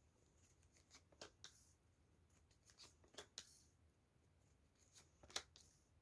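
Tarot cards being handled and shuffled: faint flicks and rustles in three short clusters, about a second in, around three seconds in, and near the end.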